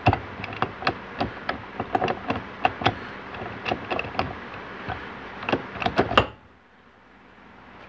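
Rapid, irregular metallic clicking and clinking of 4L80E transmission planetary gear parts being turned and worked together by hand as they mesh into place, stopping suddenly about six seconds in.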